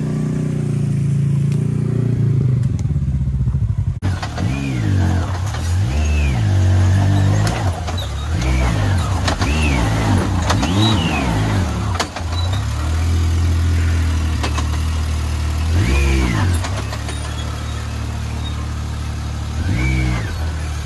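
Side-by-side UTV engine running over a steady low drone, with repeated short revs rising and falling in pitch every second or two from about four seconds in, as a Yamaha YXZ is throttled up rock ledges.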